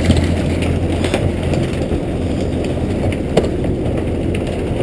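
Steady low machine hum from a fish-stocking tank truck, with a few light knocks, one about three and a half seconds in.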